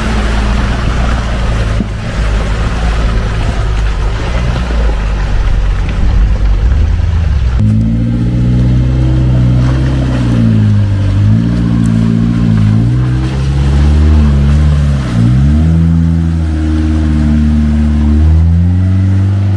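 Off-road vehicle engines working through deep mud. For the first several seconds a UAZ's engine labours under a broad rushing noise of tyres churning mud; then, about eight seconds in, a clearer engine revs up and down again and again as the ZAZ 968M with its 2.5-litre ZMZ-405 petrol engine pushes through the mud.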